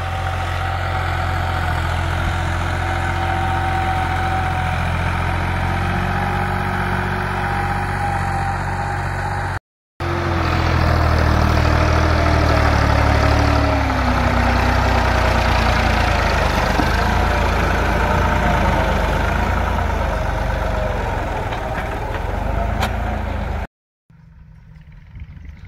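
Massey Ferguson 260 tractor's three-cylinder diesel engine running steadily under load while pulling an eleven-tine cultivator through soil. Partway through, its pitch falls gradually as it works, and near the end the engine sound drops to a much fainter level.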